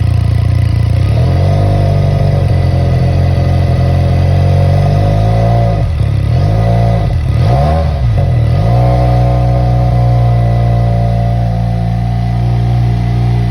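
American Piston 400 cc Bristol motorcycle engine idling, with several quick throttle blips about halfway through, the pitch rising and falling each time, before it settles back to idle.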